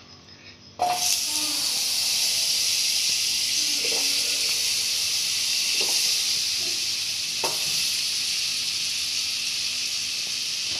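Butter sizzling in a hot non-stick kadhai as pieces are dropped in to melt. It is a steady, even hiss that starts suddenly about a second in, with a few faint taps of pieces landing.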